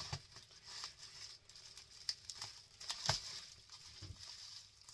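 A wrapped package being handled and opened by hand: scattered rustling of packaging with small knocks and clicks, the loudest knock about three seconds in.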